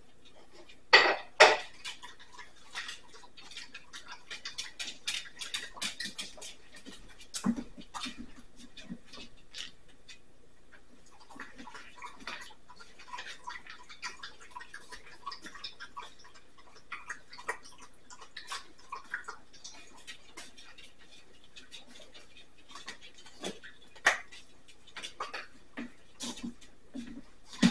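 A green-cheeked conure eating food held in its foot: its beak makes runs of small clicks and crunches, with two loud sharp sounds about a second in.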